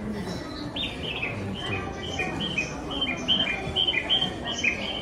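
Station stairway guidance sound for blind passengers: an electronic bird-chirp call, a rapid, even string of short chirps alternating between two pitches, starting about a second in over a low murmur of the crowded platform.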